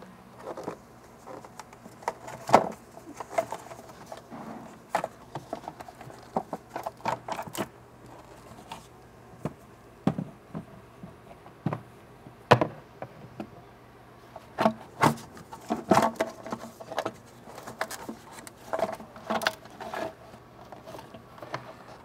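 Irregular clicks, knocks and light rattles of hard plastic engine air-intake parts being handled and worked loose by hand. The sharpest knocks come about two and a half seconds in and about halfway through.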